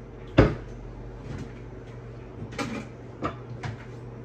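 Kitchen cupboard knocking about half a second in, followed by three lighter clatters of cookware being taken out.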